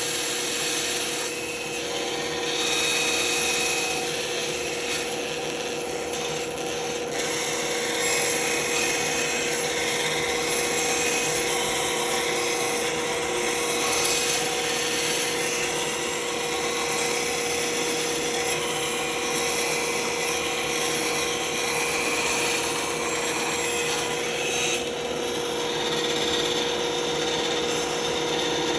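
Band saw running and cutting, with a constant hum under a steady rasping of the blade through the workpiece.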